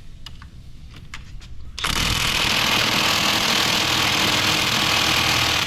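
Impact wrench running in one continuous burst of about four seconds, spinning a wheel's lug nut, starting abruptly after a few light clicks of handling.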